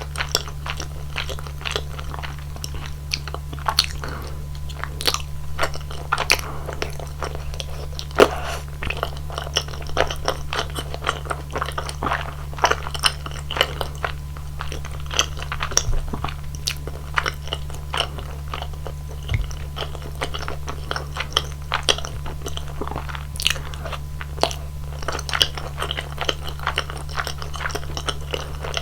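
Close-miked chewing and mouth sounds of someone eating chewy rice cakes in a thick, creamy rosé tteokbokki sauce: irregular sticky clicks, smacks and soft crunches, with a steady low hum underneath.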